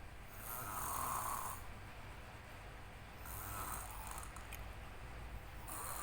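A nine-year-old boy snoring heavily in his sleep while ill: three snores about two and a half seconds apart, the first the loudest.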